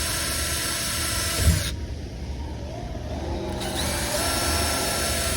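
Power drill with a brad point bit running as it drills through a cabinet door; the motor eases off about two seconds in, then speeds back up with a rising whine.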